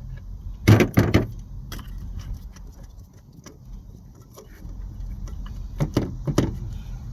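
Metal hand tools and parts clinking and knocking in irregular sharp strikes, a cluster about a second in and another near the end, over a steady low hum.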